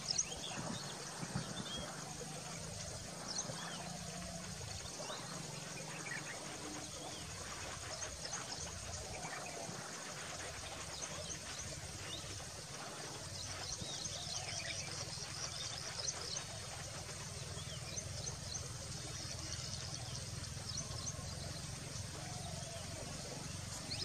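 Several birds calling in short, scattered high chirps and trills, with a quick run of repeated notes near the middle, over a steady low background hum.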